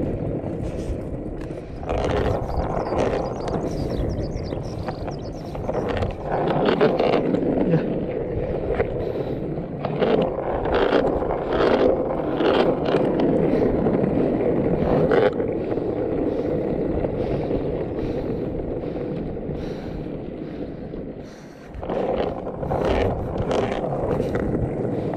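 Longboard wheels rolling on asphalt: a steady rumbling hiss, with short scrapes and knocks here and there. The rumble drops away briefly a few seconds before the end, then picks up again.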